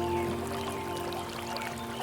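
Soft piano notes held and slowly fading over the steady rush of a forest stream, with faint bird chirps.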